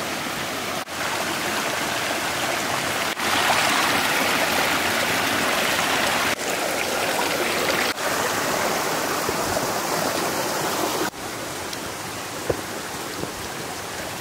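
Mountain stream running over rocks: a steady rushing of water whose loudness jumps up or down abruptly several times.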